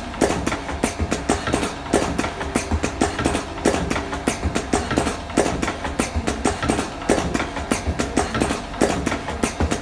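Automatic cigarette-rolling machine running, its mechanism clacking several times a second over a steady motor hum.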